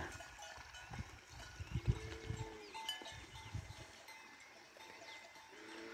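Faint clanking of cattle bells from a grazing herd, with two drawn-out calls from the animals, one about two seconds in and one near the end.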